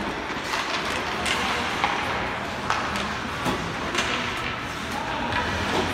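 Ice hockey play in an indoor rink: a string of sharp, irregular clacks of sticks and puck, several per couple of seconds, over steady arena noise.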